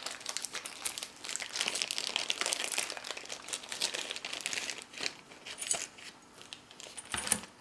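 Paper wrapping crinkling and rustling as a padlock is unwrapped by hand, a dense run of crackles with a few sharper clicks.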